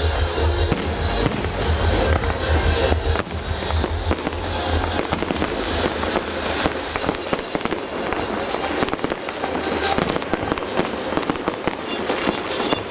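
Fireworks display: aerial shells bursting in a rapid, irregular run of sharp bangs and crackles, coming thicker in the last few seconds.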